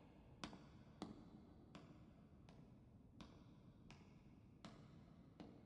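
Faint, slow footsteps, about eight hard clicks spaced evenly about three-quarters of a second apart, like shoes on pavement.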